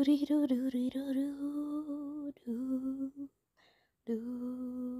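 A voice holding a long, steady note at one pitch, sung or hummed without words, in three stretches with short breaks. The last stretch starts about four seconds in.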